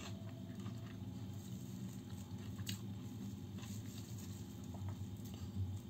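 A person chewing a mouthful of seaweed-wrapped rice sushi with the mouth closed: faint, with small wet mouth clicks every second or so over a low steady hum.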